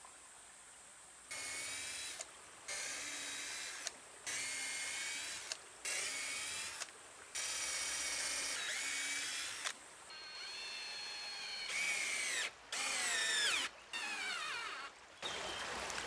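Cordless drill driving screws through wooden planks into logs, in about nine short runs of a second or so with brief pauses between. The motor's whine drops in pitch near the end of several runs as the screw is driven home.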